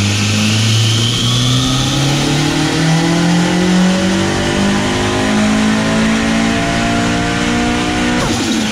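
Mitsubishi Evo turbocharged four-cylinder with a Garrett GTX30 turbo, swapped into a Mitsubishi Starion, pulling under load in a dyno tuning run. Its revs climb steadily the whole time, then drop sharply near the end as the throttle is lifted.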